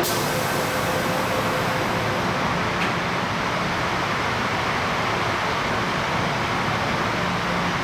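MTR M-Train standing at an underground platform, with a steady hiss from its air-conditioning and the station ventilation. The train doors and platform screen doors slide shut, with a faint knock about three seconds in.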